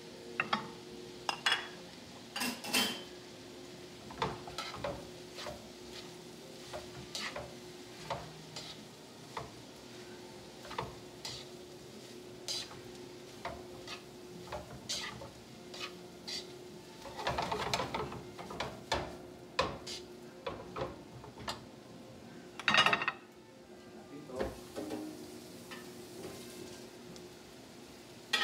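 Metal tongs tossing and stirring vegetables in a nonstick skillet: irregular clinks and clatters against the pan, the loudest about 23 seconds in, over a light sizzle of frying and a steady low hum.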